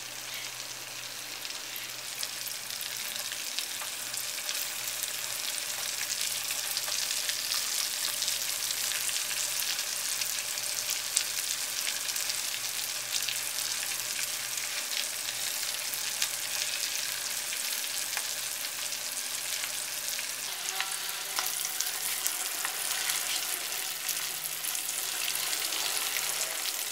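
Semolina-coated fish pieces deep-frying in hot oil in a steel pan: a steady, dense crackling sizzle. A slotted steel spoon stirs and turns the pieces in the oil now and then.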